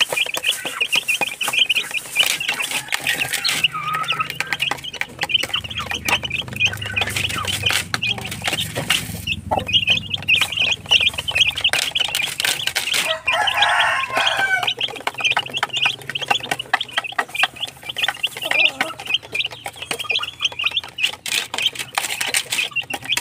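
Young upgraded native chicks peeping continuously in rapid high chirps while they feed, with many sharp clicks of beaks pecking at a plastic feeder. A brief, lower and louder call from the mother hen comes about fourteen seconds in.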